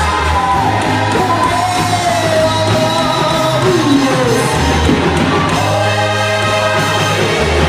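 Music with singing: a voice line that bends and glides over long, sustained bass notes, with occasional shouts or whoops.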